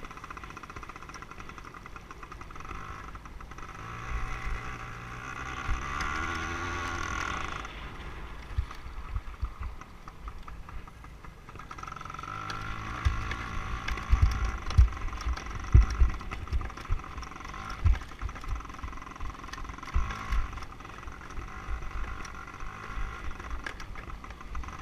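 A small dirt bike engine running and revving as it is ridden, its pitch rising and falling, with low thumps crowding in during the middle.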